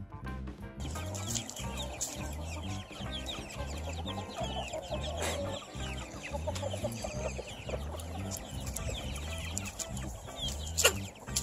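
A flock of young white chickens clucking, with many short high calls, as a border collie herds them. Background music with a steady low beat runs underneath. One sharp, loud sound stands out near the end.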